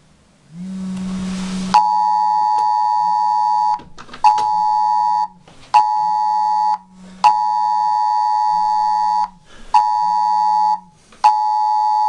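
Smartphone sounding the Emergency Alert attention signal. It is a loud two-note tone near 1 kHz, pulsed in a repeating pattern of one two-second blast and two one-second blasts with half-second gaps. The phone's vibration motor buzzes in step with it. A second or so of vibration buzz comes first, and then the tone starts.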